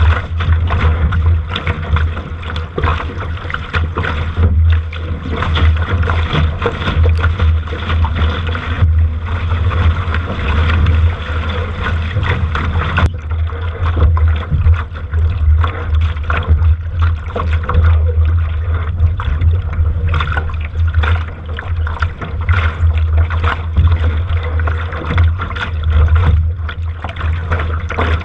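A sailing boat moving through choppy water on a windy day: water rushing and splashing, with a steady low wind rumble buffeting the microphone.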